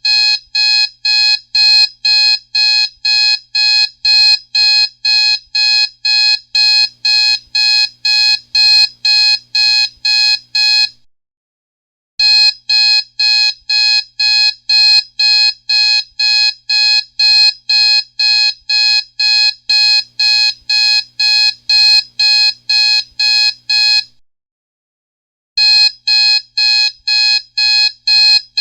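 Electronic alarm-clock ringtone: rapid, high-pitched beeping at about two beeps a second. It comes in long runs broken by short pauses, about eleven seconds in and again about twenty-four seconds in.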